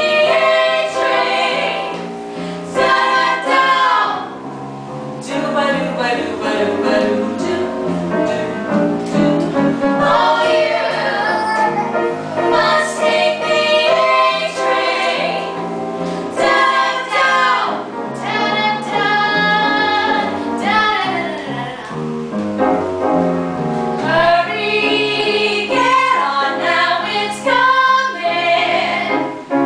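Three women singing together in a vaudeville-style song number, with several voices heard at once.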